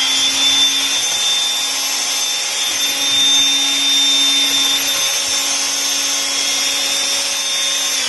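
Half-inch heavy-duty mixer drill running at a steady speed, turning a drywall paddle through a pail of thick liquid-applied air/water barrier.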